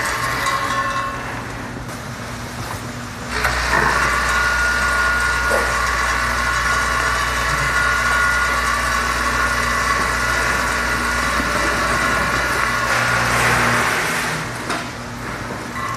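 Vibratory feeders of a direct fill weighing scale running with a steady hum while roasted peanuts pour from the feed pans into a cardboard case. It gets louder about three seconds in and drops near the end as the flow slows to a trickle, the case nearing its target weight.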